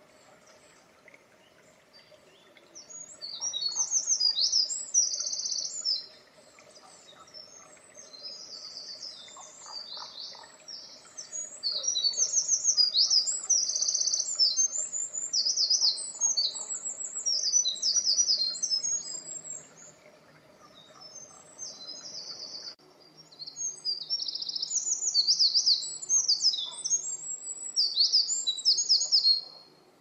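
Eurasian wren singing: long, rapid, high-pitched song phrases of fast trills and rattling runs, in four bursts with short pauses, the longest lasting about eight seconds and one much fainter.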